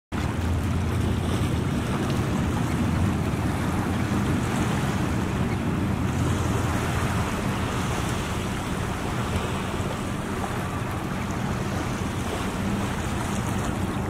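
Ocean surf washing onto a sandy beach: a steady rushing noise with a deep low rumble underneath.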